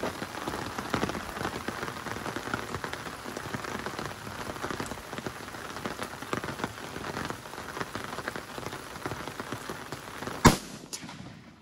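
Steady rain falling, then near the end a single sharp rifle shot, the loudest sound, followed about half a second later by a fainter crack.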